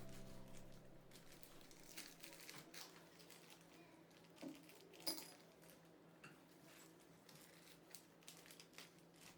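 Faint crinkling and a scattering of light clicks and taps from small sewing supplies being handled and sorted; the sharpest tap comes about five seconds in.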